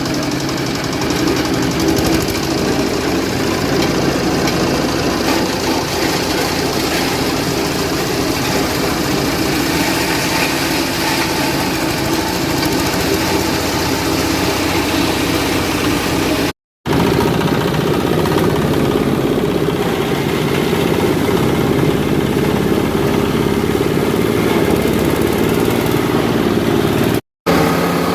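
Engine-driven branch-and-leaf shredders running together with a steady, loud engine-like sound. The sound cuts out briefly twice, once past the middle and once near the end.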